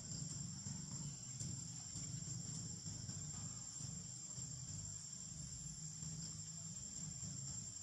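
Insects in the surrounding forest keeping up a steady, high-pitched drone, with a low rumble underneath.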